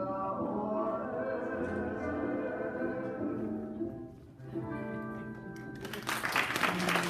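Group singing of the hula song with musical accompaniment, pausing briefly about four seconds in, then ending as audience applause breaks out about six seconds in.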